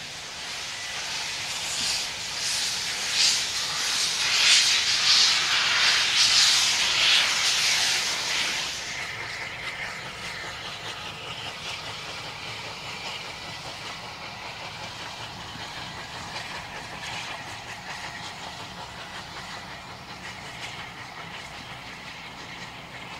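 Steam locomotive working hard with its cylinder drain cocks open, a loud hiss of steam for the first eight seconds or so. After that comes a quieter, steady running sound of a Bulleid light Pacific steam locomotive and its coaches passing.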